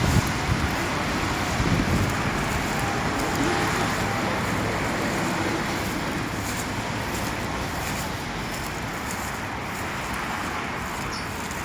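Traffic on a wet street: a vehicle's tyres hissing on the wet road, slowly fading away.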